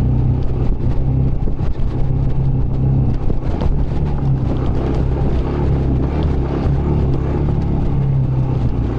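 Yamaha YBR125's single-cylinder four-stroke engine running steadily under load on a climb up a dirt road, with scattered light knocks and rattles from the rough surface.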